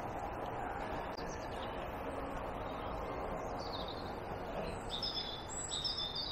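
Small bird calling, several short high chirps in the second half, over a steady outdoor background hiss.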